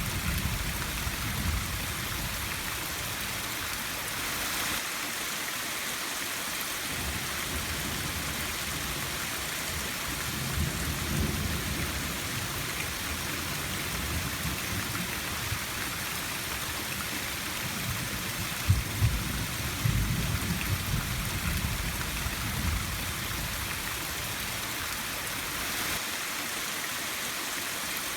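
Steady rain hiss with several low rolls of thunder coming and going, the loudest about two-thirds of the way through.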